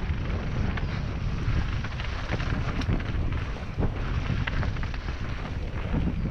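Wind buffeting the camera's microphone over the noise of mountain bike tyres rolling fast on a dirt singletrack, with scattered clicks and rattles from the bike as it runs over roots and stones.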